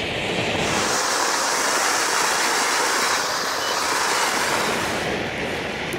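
Silberhütte orange Bengal fire pot burning with a steady hissing rush, swelling about a second in and easing off near the end.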